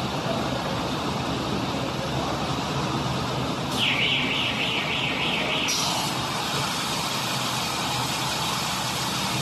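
Silage round baler and wrapper machine running steadily. A high warbling tone sounds for about two seconds a little before the middle.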